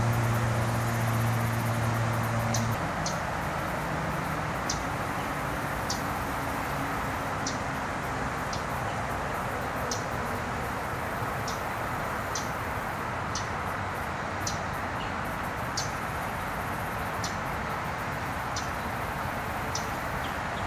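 A small songbird hidden in the grass gives short, high chip notes about once a second, over a steady rush of distant traffic. A low engine hum fades out in the first few seconds.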